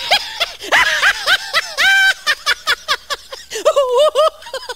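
Lion laugh sound effect: a run of quick, high-pitched laughing syllables, with one held note about two seconds in and a fast, wavering chuckle near the end.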